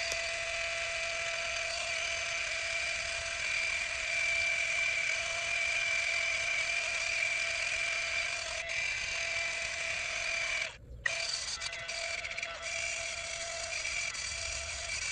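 Cordless Flex angle grinder with a sanding disc running steadily against pin oak, smoothing the base of a carving block: a continuous high whine, with a very short break about eleven seconds in.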